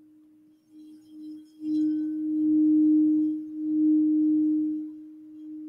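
Crystal singing bowl played with a wand: one steady ringing tone that is faint at first, swells loud about two seconds in, wavers once and eases off near the end.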